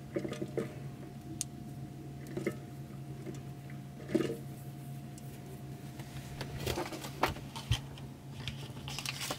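Fresh yeast being crumbled by hand into a steel kitchen-machine mixing bowl: soft crumbling and light ticks as the bits drop in, over a steady low electrical hum.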